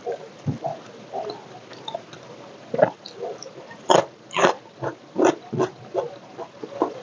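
Close-miked chewing and crunching of crispy food, with irregular crunches and wet mouth sounds; the loudest crunches come about four seconds in.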